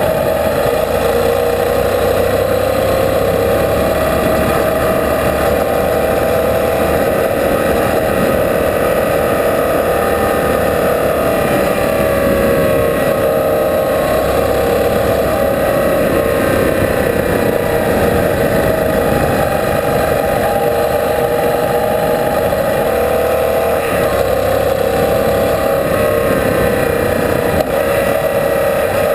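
Yamaha Super Tenere's parallel-twin engine running at a steady cruise, with wind rush and tyres crunching over a gravel road.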